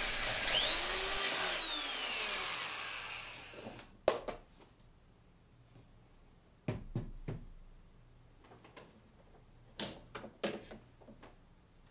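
Small handheld electric drill running as it enlarges the wire hole in a 3D-printed plastic clock body; its whine rises and then falls away as the drill winds down about three to four seconds in. A few light knocks follow as the plastic body is handled and set down on the wooden bench.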